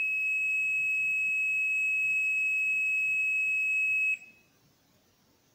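DT9205A digital multimeter's continuity buzzer sounding one steady high-pitched beep for about four seconds, then cutting off suddenly; the beep signals a closed, near-zero-resistance path between the probe tips on the circuit board.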